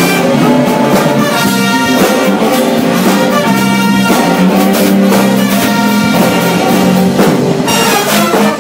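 Big band playing jazz, with the brass section of trumpets and trombones to the fore and saxophones beneath, in loud sustained chords that change about once a second.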